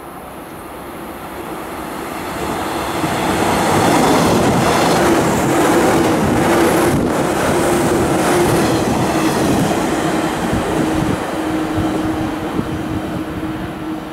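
JR 185 series electric train passing at speed, its MT54 traction motors growling with a steady drone over the clatter of wheels on the rails. It builds to its loudest about four seconds in as the cars go by, then slowly fades.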